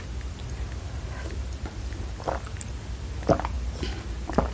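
Soft gulps of an iced orange drink swallowed from a glass, four swallows about a second apart, over a low steady hum.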